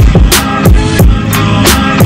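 Backing music with a steady beat: deep kick drums that drop in pitch and a sharp snare-like hit about every two-thirds of a second, over held pitched chords.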